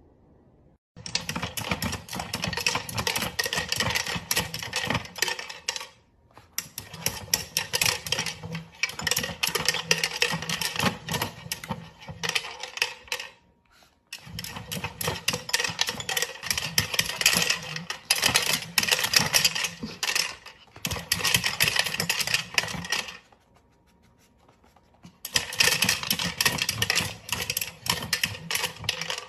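Plastic treat-dispensing wheel being spun by a small dog, with treats rattling and clattering inside the turning drum. It comes as dense runs of clicks in four long stretches with short pauses between.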